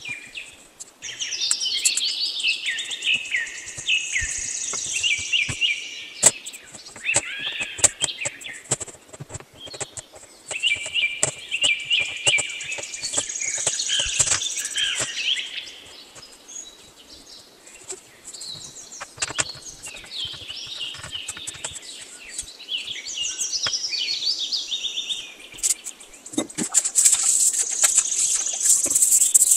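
Birds chirping and twittering in rapid high trills that come and go in spells, over scattered clicks and knocks.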